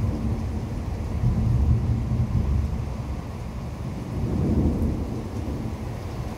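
Thunder from a severe thunderstorm rumbling almost without a break, swelling about a second in and again past the halfway point.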